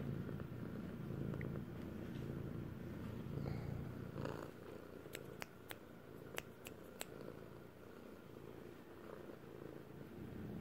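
Domestic cat purring right up against the microphone, a steady low rumble that grows quieter about halfway through. About six sharp clicks come between five and seven seconds in.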